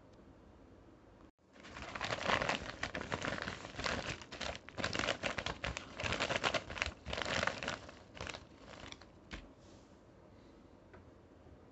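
A Sealed Air Mail Lite padded mailer crinkling and crackling as it is handled. The dense crackling starts about a second and a half in and thins to a few scattered crackles near the end.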